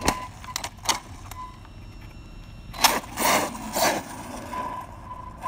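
Arrma Outcast 6S RC truck driving in short bursts of throttle, its drivetrain running rough with clicks, loudest about 3 to 4 seconds in. The clicking comes from a broken planetary gear in the center differential.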